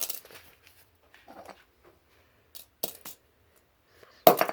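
A fidget spinner being battered: a few sharp metallic knocks and clinks with pauses between them, the loudest near the end.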